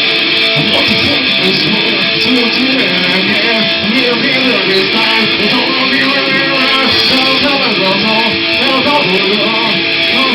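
Rock band playing live, with guitar to the fore; the music is loud and unbroken, with notes bending in pitch.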